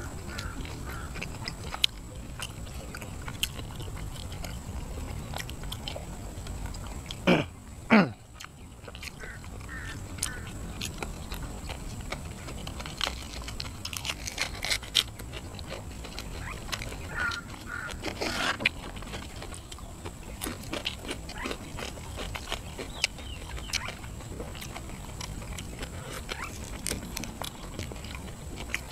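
Close-miked chewing and biting of grilled catfish and papaya salad eaten by hand: wet mouth clicks and smacks throughout, with a couple of louder bites about seven and eight seconds in and another near eighteen seconds.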